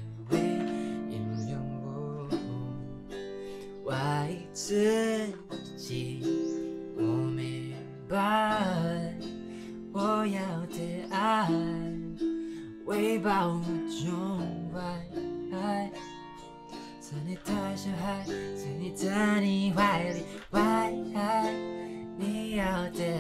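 Autoharp strummed in sustained, ringing chords, with a man singing a gliding melody over it in phrases every couple of seconds.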